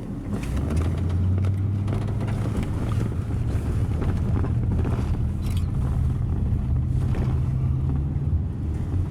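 Tour coach engine running steadily while driving, heard from inside the cabin as a low drone.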